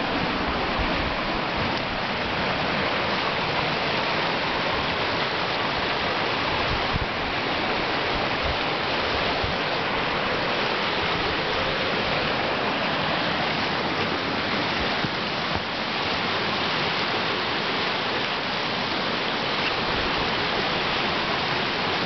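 River falls and rapids rushing: a loud, steady, even roar of white water.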